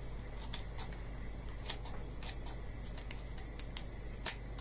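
Scissors snipping the barbs off a peacock feather's shaft: a series of short, irregular clicks.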